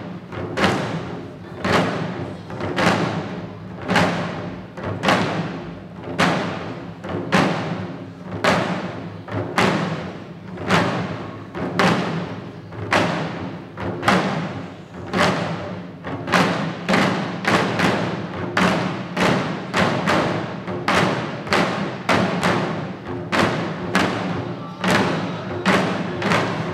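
Shishi odori (deer dance) drumming: several dancers striking the small drums hung at their chests with sticks, in a steady beat of about one stroke a second. A little past halfway the strokes come closer together, in quicker pairs and runs.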